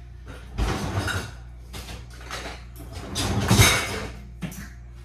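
A kitchen cupboard is rummaged through as small glass ramekins are taken out. There are two bursts of clattering, the louder about three seconds in, then a short knock.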